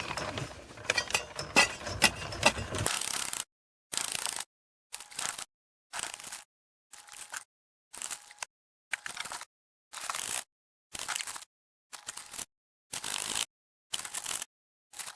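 Hand digging in soil and rock under a house, scraping with sharp clicks. After a few seconds it breaks into a run of short bursts about one every 0.8 s, each followed by dead silence.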